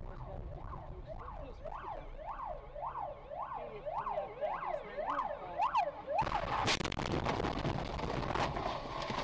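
Ambulance siren wailing in fast up-and-down sweeps, about two a second. About six seconds in it is cut across by a sudden loud bang and clattering noise from the collision, which goes on for about three seconds.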